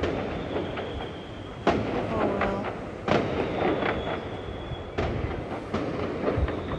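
Fireworks going off: several sharp bangs, the loudest about one and a half, three and five seconds in, with smaller pops and a rumble between them.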